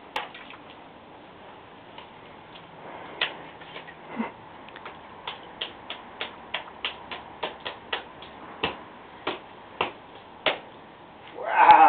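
A toddler's shoes stepping and stomping in a shallow muddy puddle: a run of short wet slaps, two or three a second, that stops about ten seconds in. A voice exclaims just before the end.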